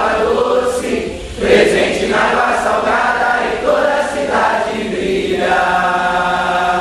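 A group of voices chanting together in sung phrases, settling into one long held note near the end.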